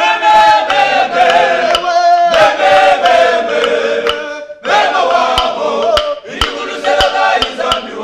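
Men's choir singing a gospel praise song a cappella in several-voice harmony, with hand claps on the beat. The singing breaks off briefly twice between phrases.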